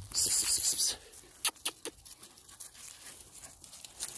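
Dry grass and fallen leaves rustling and crunching: a loud, scratchy burst in the first second, then three sharp clicks around a second and a half in, then faint rustling.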